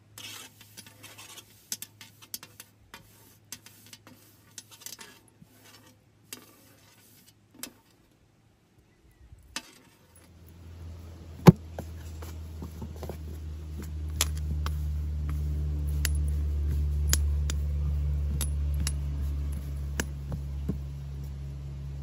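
Light clicks and taps of fingers and rings on a glass baking tray as flour is spread and dough is handled. About ten seconds in, a low steady hum starts, swells to its loudest a little past the middle, then eases, with the taps going on over it.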